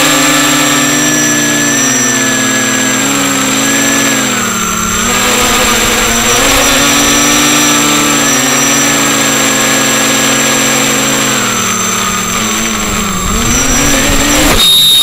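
FPV quadcopter's electric motors and propellers whining, the pitch wavering up and down together as the throttle changes. Near the end there is a sudden loud burst of noise and the motor tones drop.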